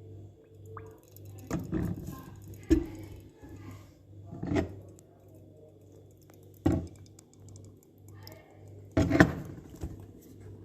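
About five sharp knocks and clunks of kitchen containers being handled while olive oil is poured into a jar of garlic-stuffed dried figs, over a faint pulsing hum.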